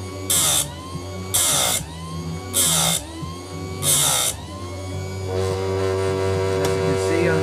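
Electric chainsaw chain grinder sharpening a dull chain: the abrasive wheel is brought down on the teeth in four short, harsh grinding strokes about a second apart, throwing sparks. From about five seconds in, the wheel's motor runs steadily with no grinding while the chain is set for the next tooth.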